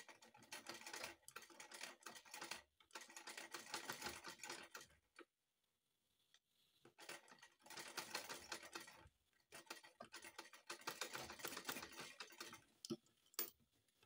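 Manual black-head sewing machine stitching slowly, a fast run of light clicks from the needle and mechanism, in stop-start spells with a pause of about two seconds in the middle.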